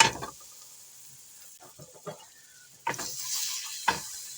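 Melted butter with ginger and garlic sizzling in a pot as it is stirred. A few faint taps come first; about three seconds in the sizzle gets louder and a spoon knocks against the pot twice.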